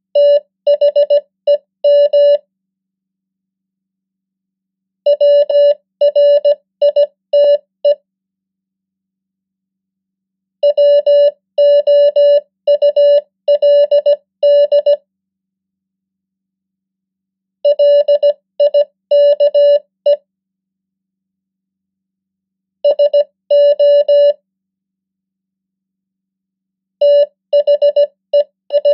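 Morse code beeps: a single-pitch tone keyed into dots and dashes at 15 words per minute. Six words are sent, each lasting one to four seconds, with a few seconds of silence between them. The last word runs on past the end.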